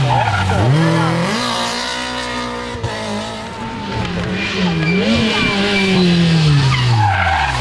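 Rally car engine driven hard on a special stage, its revs dipping and climbing again several times as the driver lifts and changes gear, then falling in one long slide near the end as the car pulls away.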